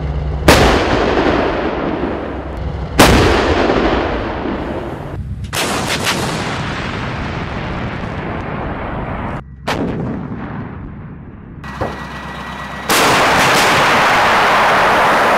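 Self-propelled howitzers firing: several heavy gun blasts, the loudest about half a second and three seconds in, each followed by a long rolling rumble. A steadier loud rumble sets in near the end.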